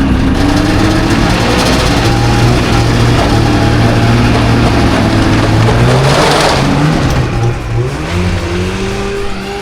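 Snowmobile engine running steadily under throttle. Its pitch sags about seven and a half seconds in, then climbs again near the end.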